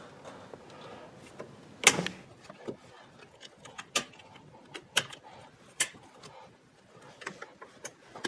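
Sharp clicks and taps of hand work on a transmission cooler line fitting at a radiator tank, as its black plastic cover is pried back. The loudest click comes about two seconds in, followed by three more sharp ones about a second apart and lighter ticks near the end.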